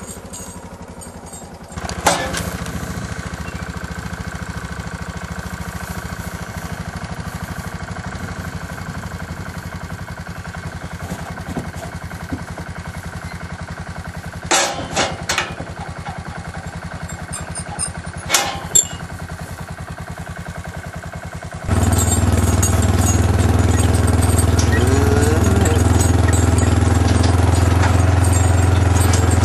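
A vehicle engine running steadily with a few sharp knocks, then about twenty seconds in a louder, deeper engine drone.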